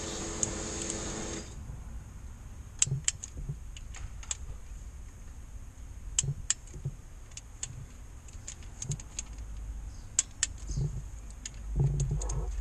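Ratchet wrench working the bolts of a crankshaft rear oil-seal housing: scattered sharp metallic clicks and clinks, some in short quick runs. A steady motor hum cuts off about a second and a half in, and low thumps and a rumble come near the end.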